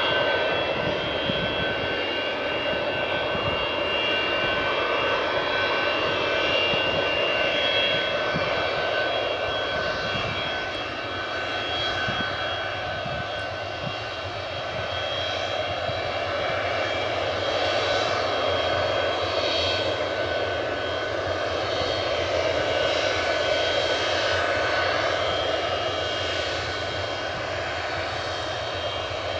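Boeing 737-200's Pratt & Whitney JT8D turbofan engines running at low taxi power, a steady high whine over a broad jet rush, easing slightly about halfway through.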